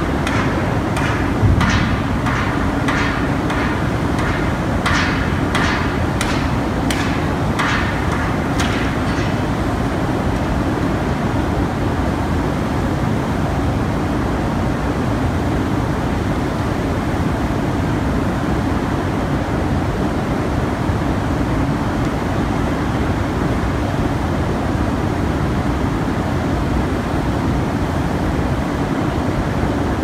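Blast furnace tap hole being opened: a run of sharp, ringing metal-on-metal strikes, irregular at about two a second, that stop about nine seconds in, over a steady loud roar from the open, flaming tap hole.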